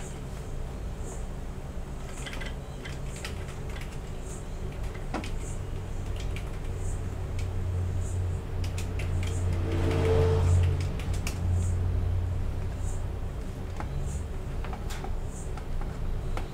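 Scattered light clicks, from keys and a mouse being used to sign in, over a low hum that swells to its loudest about ten seconds in and then fades.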